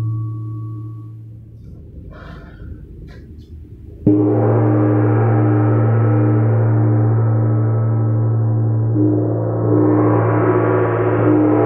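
A 24-inch wind gong's ring dies away. About four seconds in, a 24-inch chao gong is struck hard with a padded mallet and rings on with a deep hum and a wavering, beating tone. It is struck again about five seconds later and its sound swells brighter.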